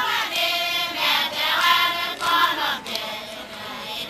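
A group of Satawalese women chanting together in unison as the song for a seated dance, in sustained phrases with short breaks between them.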